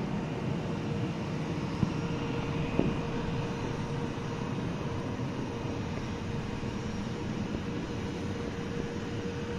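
Jet engines of a StarFlyer Airbus A320 climbing away after takeoff: a steady low rumble with a faint whine. Two short knocks about two and three seconds in.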